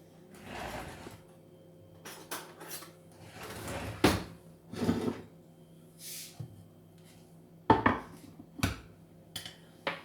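Kitchen handling sounds: a series of separate knocks and clatters of dishes and utensils being picked up and set down, the sharpest about four seconds in and again near the end, with a short hiss about six seconds in.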